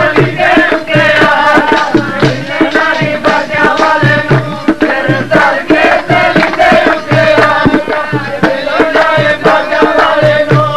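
Sikh kirtan music: voices singing wavering, held notes over a steady tabla beat and a sustained drone.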